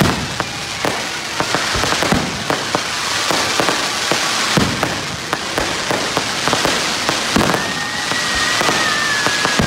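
Fireworks going off in quick succession: a rapid, irregular string of sharp bangs over a continuous crackling hiss. A high, steady whistle joins about three-quarters of the way through and slides slightly down in pitch.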